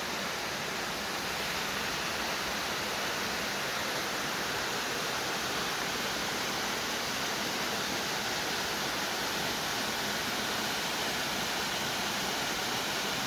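A forest waterfall's falling water, a steady, even rush that holds constant throughout.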